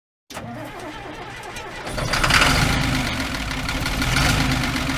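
An engine starting: it turns over quietly for a second or two, catches about two seconds in, and runs on steadily.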